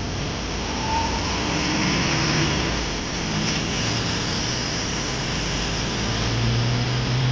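Bus engine running, heard from inside the passenger cabin as a steady rumble and hum; a low engine tone grows stronger near the end.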